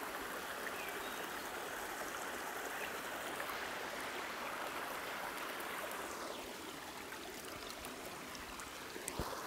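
Stream water running steadily over a rocky streambed, with a single faint click shortly before the end.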